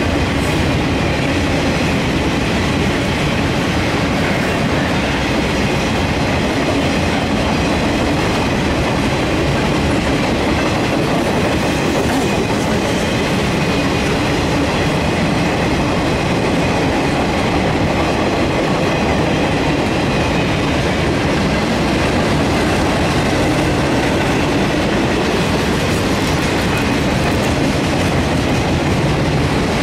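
Freight train's loaded flatcars rolling past: a loud, steady rumble and clatter of steel wheels on the rails.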